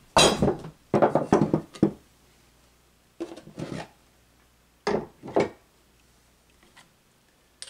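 A wooden block and a mallet clunking and scraping on a wooden workbench as they are handled and put down, in a few short groups of wood-on-wood knocks.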